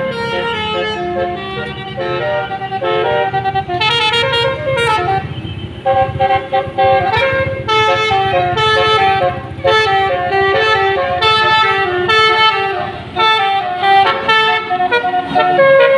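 Basuri 'telolet' multi-tone bus horn playing a quick tune of short notes that step up and down, with brief pauses, over the bus engine running.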